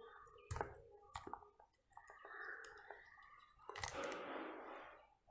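A few faint plastic clicks, then a brief scraping rasp about four seconds in, as the screw-off tip of a car cigarette-lighter power plug is twisted open to reach its fuse.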